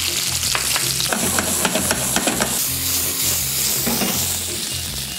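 Chicken pieces and freshly added sliced onion sizzling in a hot frying pan while they are stirred with cooking chopsticks, with a run of light clicks of the chopsticks against the pan about a second in.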